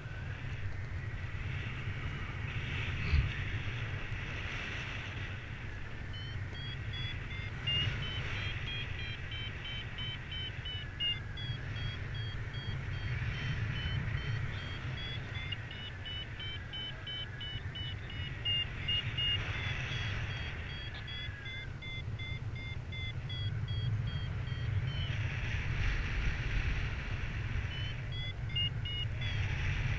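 Paragliding variometer beeping in quick, evenly spaced pulses whose pitch drifts up and down, the climb tone that signals the glider is rising in lift. The beeping starts a few seconds in, stops past the middle and returns near the end, over a steady rumble of wind on the microphone.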